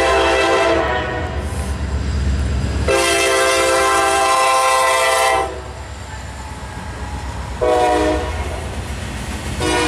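Norfolk Southern diesel locomotive's multi-tone air horn sounding in long and short blasts: the end of one blast, a long blast, a short blast, then another blast starting near the end. It is the long-long-short-long grade-crossing signal, heard over the low rumble of the passing freight train.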